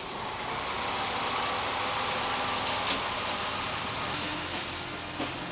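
Diesel locomotive moving slowly along the track, its engine and wheels making a steady running noise, with three short sharp sounds, the loudest about three seconds in.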